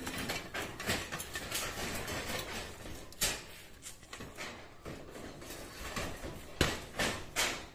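Metal tent-frame pipes knocking and clanking as they are handled, with a scraping, rustling stretch early on, a sharp knock about three seconds in, and three sharp knocks in quick succession near the end.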